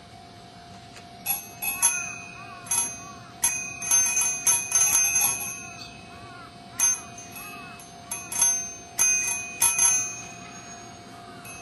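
Small metal bells struck by hand in a bell-ringing performance: about fifteen sharp, bright, high-pitched rings in uneven clusters, each ringing out briefly before the next.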